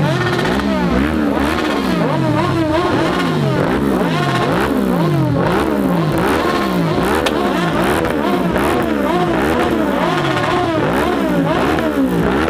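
Several motorcycle engines revved over and over, their pitch rising and falling about once a second in overlapping waves.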